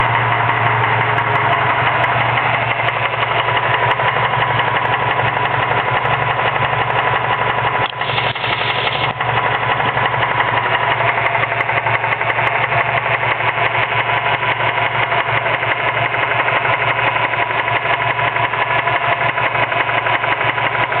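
Mazda 6 engine idling with a rapid, even knocking from the serpentine belt drive: the sign of worn bearings in the idler pulley.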